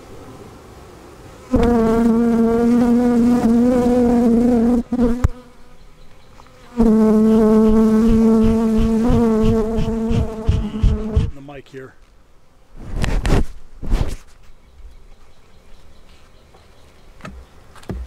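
Honeybee buzzing loudly right at the microphone in two long stretches, a steady hum that wavers slightly in pitch. Near the end, two short puffs from a bee smoker's bellows.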